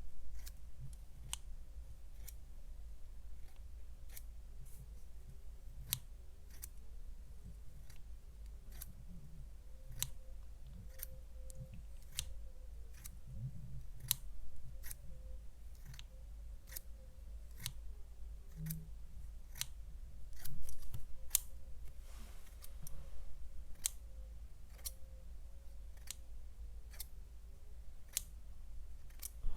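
A slow, uneven series of sharp clicks, about one or two a second, over a low steady hum.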